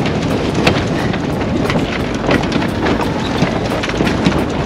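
Strong wind buffeting the microphone aboard a sailboat under way, a loud rumbling rush with irregular gusty thumps.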